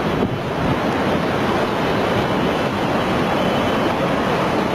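Floodwater rushing past in a steady, loud wash of noise.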